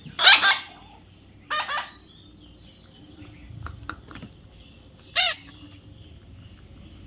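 A parrot calling three times in short, loud squawks. The first call, just after the start, is the longest and loudest; a shorter one follows about a second later, and a last brief one comes near the end.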